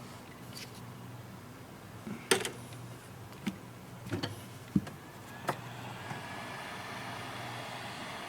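Sharp clicks and taps of small tools working on the opened tablet's parts, about six scattered strikes with the loudest about two seconds in, over a low steady hum. From about six seconds a steady rushing noise joins in.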